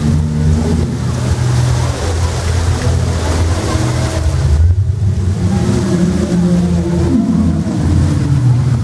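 Tourist train running, a steady low rumble.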